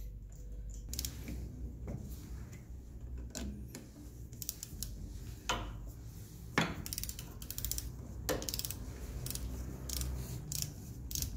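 Hand ratchet clicking in short runs while the bolts of a motorcycle clutch's pressure plate are tightened, with knocks of the tool against metal in between.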